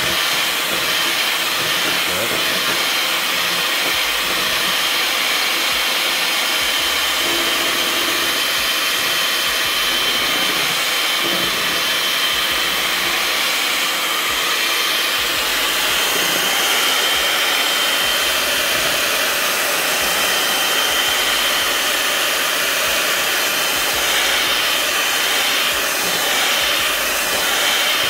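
Electric mixer running steadily at medium speed while whipping a mousse filling, a steady motor noise with a thin high whine over it.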